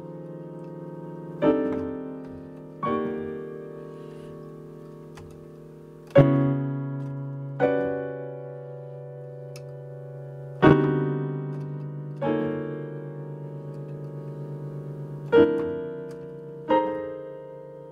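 Casio digital piano playing slow, sustained chords, a new chord struck every one and a half to three seconds over a held low bass note, each chord ringing on and fading.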